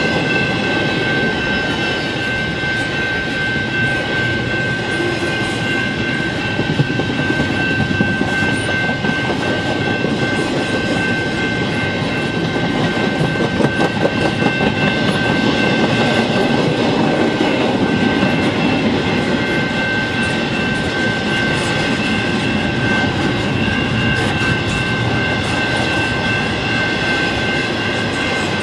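Double-stack intermodal train's well cars rolling past at speed, a continuous rumble with wheels clacking over the rails. Over it runs a steady high tone from the crossing's General Signals Type 2 electronic bell, still ringing with the gates down.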